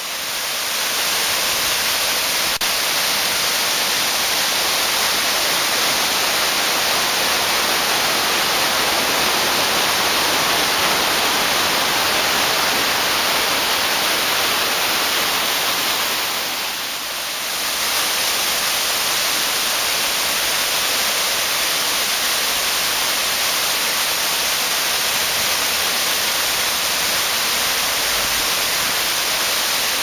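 Man-made waterfall cascading over large boulders: a loud, steady rushing of falling water, briefly a little softer about halfway through.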